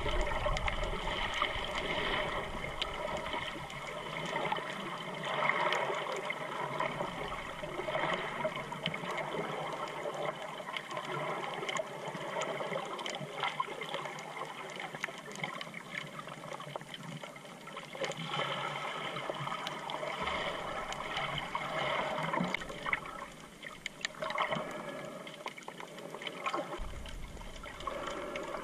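Water moving around a submerged GoPro camera's housing, heard underwater: a muffled, steady sloshing and trickling, dotted with many faint crackles.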